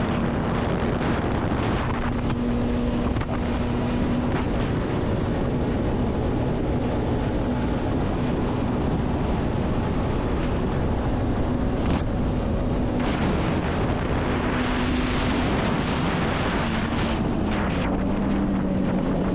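Jet ski engine running steadily at speed, its pitch wavering slightly up and down, under heavy wind noise on the microphone and rushing water.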